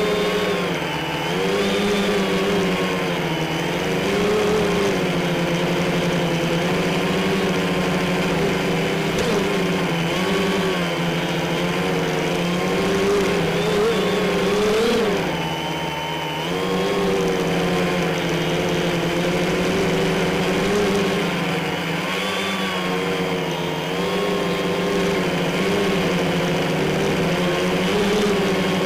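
Quadcopter's electric motors and propellers buzzing steadily in flight, the pitch wavering up and down as the throttle changes. About fifteen seconds in the pitch jumps briefly, then the sound dips for a moment before settling back.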